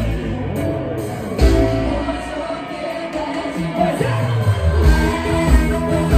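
Live band music with a singer. The drums and bass drop out about half a second in and come back in a second later, then thin out again before the full beat returns near the end.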